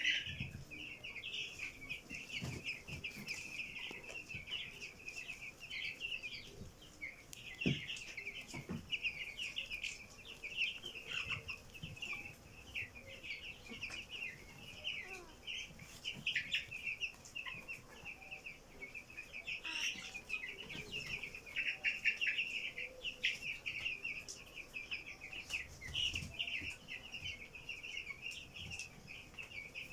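A flock of chickens calling continuously with many short, high chirps and peeps, with a few low thumps among them.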